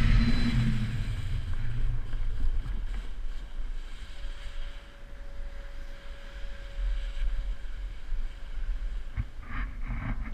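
Wind buffeting the microphone with a low rumble, loudest in the first couple of seconds and then easing off.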